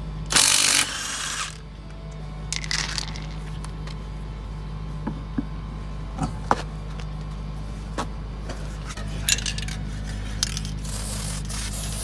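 Compressed air hissing in short bursts from an air chuck pressed onto a spare tire's valve stem while the tire is filled, with scattered metal clicks and taps over a steady low hum.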